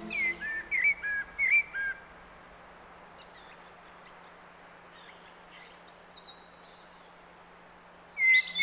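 A songbird singing: a quick run of short, bright chirping notes, a few faint scattered calls, then another burst of song near the end, over a faint steady low hum.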